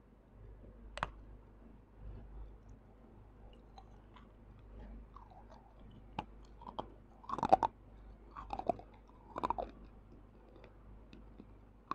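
A person biting and crunching a piece of broken terracotta clay pottery, close-miked on a clip-on microphone. There is a single sharp crack about a second in, then a run of louder crunches and chewing in the second half, the loudest a little past halfway.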